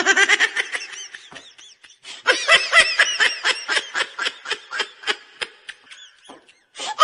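High-pitched laughter: a rapid run of short, squeaky giggles, about five a second. It breaks off briefly about a second and a half in, then carries on and stops about six seconds in.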